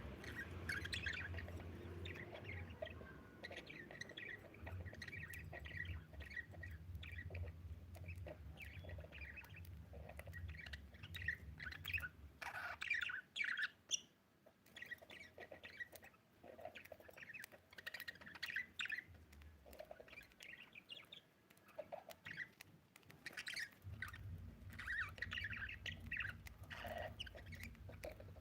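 Pet budgerigar chirping and warbling, a steady stream of many short chirps. A low hum sits underneath, dropping out for about ten seconds in the middle.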